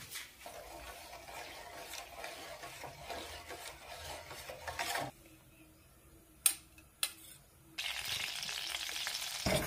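Besan (gram flour) roasting in ghee in a pan, stirred and scraped with a spoon as it sizzles. About halfway through it drops quiet for a couple of seconds with two sharp clicks. The stirring and sizzle then come back louder near the end.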